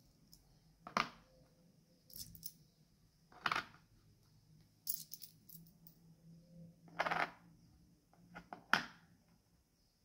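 Small metal coins clinking in a handful and being set down one at a time on a hard notebook cover: about six separate short clicks and taps, spaced a second or more apart.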